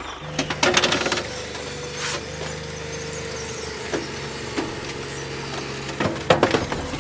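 Small electric motors of a toy remote-control excavator whining steadily as it works its boom and bucket, with clusters of clicks and rattles about half a second in and again near the end.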